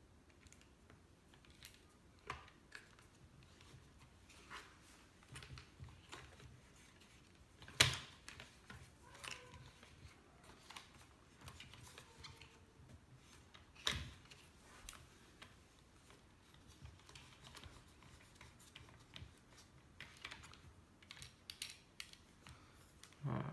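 Faint clicks, taps and scrapes of a DSLR camera being turned and screwed down onto a camera slider's mounting screw, with two louder sharp knocks about eight and fourteen seconds in.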